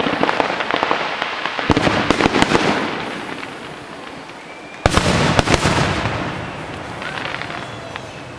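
Aerial fireworks bursting: a loud bang about a second and a half in and another about five seconds in, each followed by a spread of crackling that fades away.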